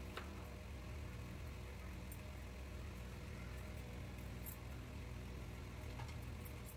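A steady low mechanical hum, with a faint knife click on a cutting board just after the start and again near the end.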